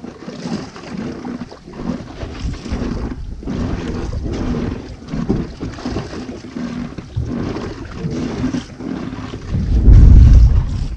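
Wind buffeting an action camera's microphone on a boat at sea, in uneven gusts, with the loudest gust about ten seconds in.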